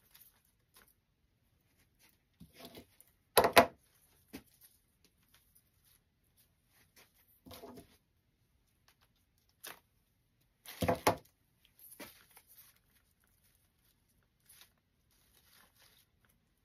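Dry grapevine and stiff artificial flower stems rustling and crackling as they are handled and pushed into the wreath. The sounds come in short scattered bursts, loudest about three and a half seconds in and again about eleven seconds in.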